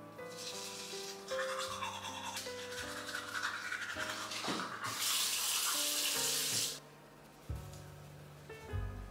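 Manual toothbrush scrubbing back and forth on teeth. About five seconds in comes a loud rushing hiss lasting under two seconds.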